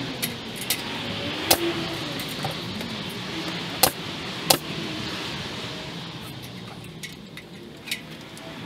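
A nail gun firing into a wooden fascia board: three loud, sharp shots spread over the first half, with lighter clicks and rattles between them and near the end.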